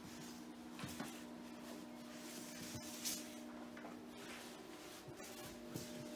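Fire hose being rolled up by hand on a concrete floor: soft scuffing of the hose jacket and a few light knocks, about a second in and again about three seconds in, over a steady low hum.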